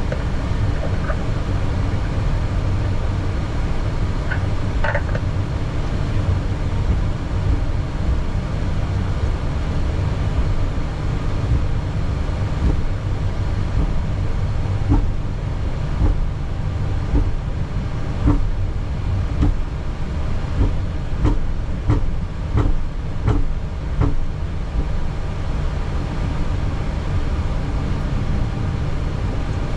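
Boeing 737 taxiing after landing, heard from the cockpit as a steady low rumble. A run of short, evenly spaced thumps comes in the middle of the stretch, about 15 to 24 seconds in.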